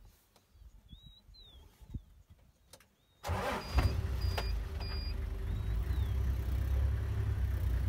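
Safari vehicle's engine starting about three seconds in, then running steadily with a deep, even rumble. Faint bird chirps before it starts.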